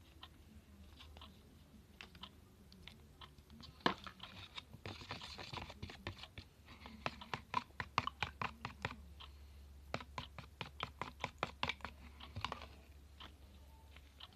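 Homemade slime being squeezed and kneaded by hand, giving runs of rapid wet clicks and pops, about five a second at their busiest, with a stretch of softer squishing near the start.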